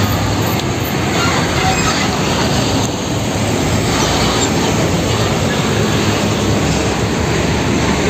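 UD Quester fuel tanker truck driving by on a street: steady, loud engine and road noise with a low hum underneath.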